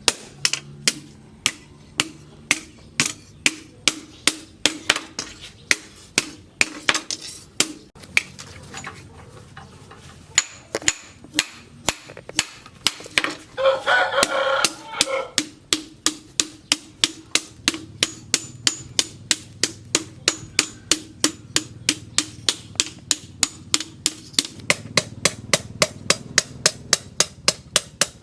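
Hand hammer striking steel from a plough disc on an anvil in steady forging blows, about two to three a second, with a short lull about a third of the way in. Around the middle a rooster crows once.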